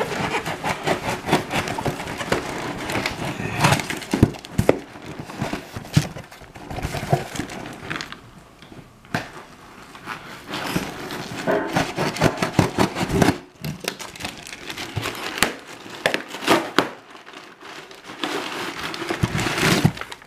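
A cardboard parcel being opened and its packing handled by hand: irregular crinkling, crackling and knocking, with a couple of quieter pauses.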